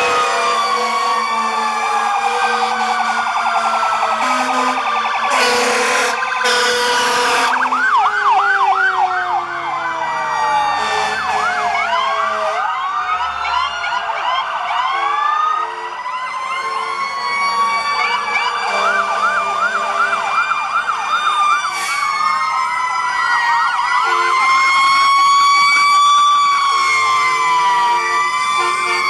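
Sirens of several fire trucks pulling out one after another, overlapping. Some are in a slow rising-and-falling wail and others in a fast yelp, over the trucks' engines. Two short horn blasts come about six seconds in.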